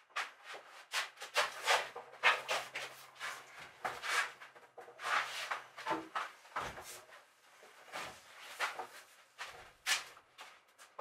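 Plywood and timber boards being picked up, knocked together and slid across a wooden workbench: an irregular run of wooden knocks, rubs and scrapes.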